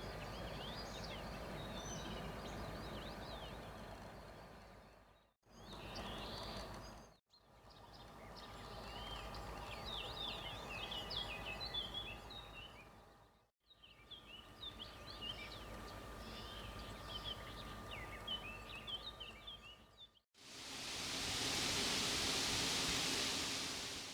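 Small birds chirping and singing over a low, steady hum, in short clips broken by brief fades to silence. The last few seconds are a louder, even hiss with no birds.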